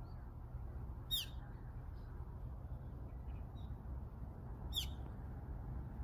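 Brown-eared bulbul giving two short, shrill calls that sweep sharply downward, about a second in and again near the end, with a few faint chirps between, over a low steady rumble.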